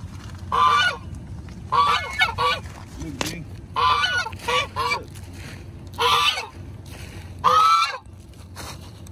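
White domestic geese honking: a string of loud, nasal honks, some singly and some in quick runs of two or three, with a longer honk near the end.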